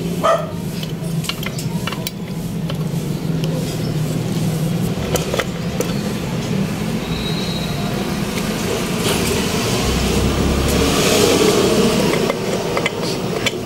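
Road traffic running steadily, swelling about two-thirds of the way through as a vehicle passes, with a few light clicks of engine parts being handled.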